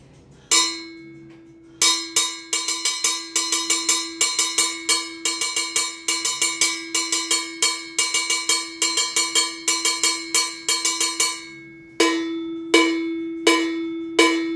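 Handcrafted Uli Mambo 2 mambo cowbell struck with a stick, ringing at one steady pitch. A single stroke comes first, then a fast rhythmic pattern of strokes lasting several seconds, then a few slower, evenly spaced single strokes near the end.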